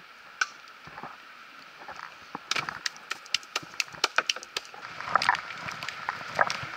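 Rowboat being rowed: oars knocking and clicking irregularly in their oarlocks, getting busier about two and a half seconds in, over a steady rush of water.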